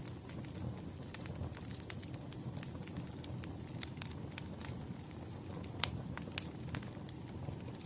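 Wood fire crackling: irregular sharp pops and snaps over a steady low rumble of burning logs, with one louder pop near the end.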